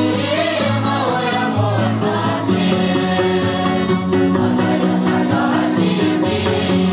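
A mixed choir of young men and women singing a song together in chorus.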